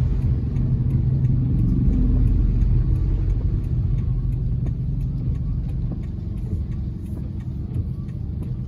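A car driving, its engine and road noise making a steady low rumble that eases off a little about halfway through.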